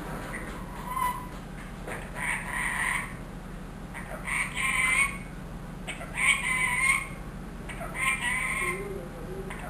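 Ringneck parrot calling about five times, one call every second and a half to two seconds, each call short and high-pitched.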